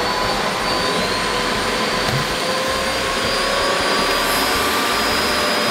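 SkyVac industrial gutter-cleaning vacuum running at full suction just after switch-on, its motor whine climbing for the first moment and then holding a steady pitch over a loud rush of air. The hose is sucking onto a 5 kg stack of pasta and cereal bags to lift them.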